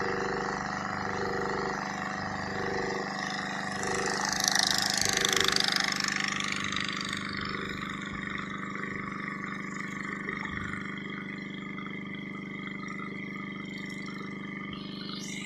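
Pumpboat engine running steadily at cruising speed, with the rush of the wake along the hull. A louder hiss swells about four seconds in and dies away by about seven seconds.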